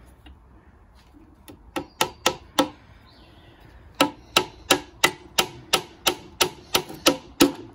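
Claw hammer striking a nail into a softwood (pine) door frame. Four quick blows come about two seconds in, then after a short pause a steady run of about a dozen blows at roughly three a second.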